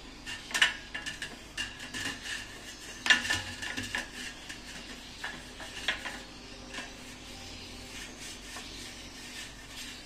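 A brush spreading oil over a perforated stainless-steel steamer plate: scraping strokes, with irregular clinks and knocks from the steel plate as it is held and moved. The loudest knocks come about half a second and three seconds in, and it quietens over the last few seconds.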